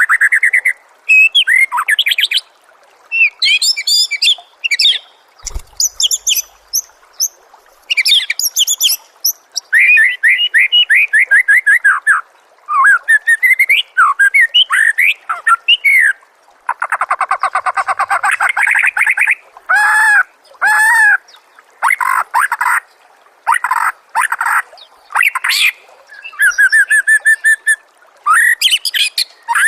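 White-rumped shama (murai batu) singing a loud, varied song: whistled glides, trills and rapid chattering phrases, one after another with short pauses between them.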